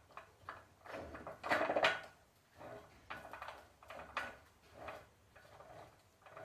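Metal gearbox parts being handled and fitted together: a run of short clunks and scrapes, loudest about one and a half to two seconds in.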